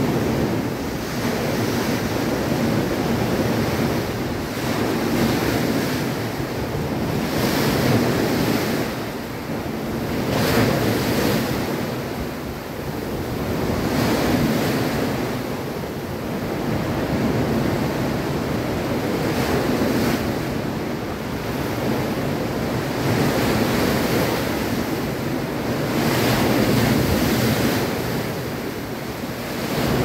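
Sea waves breaking and washing up over sand, swelling and falling back every few seconds, with water splashing and bubbles popping in the foam. Heard from under a pier, which makes the surf sound louder.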